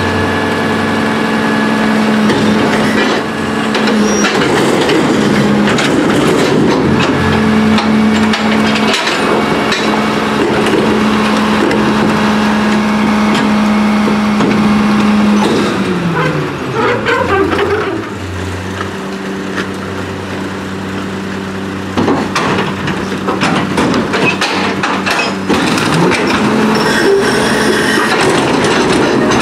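Rear-load garbage truck's diesel engine held at raised revs to drive the container-lift hydraulics, with metal clanks and bangs from the steel commercial container. About halfway the engine pitch falls back to a lower idle, and a few seconds later the clanking and raised revs return as the next container is lifted.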